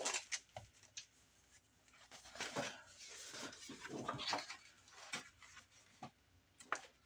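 Cellophane wrap being peeled off a pad of scrapbook paper and crumpled in the hands: faint, intermittent crinkling and rustling.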